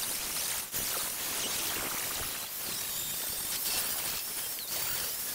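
Angle grinder with an abrasive disc grinding paint off a steel frame: a steady hiss of disc on metal, with a brief dip in level under a second in. A thin high motor whine wavers up and down in pitch in the second half as the load changes.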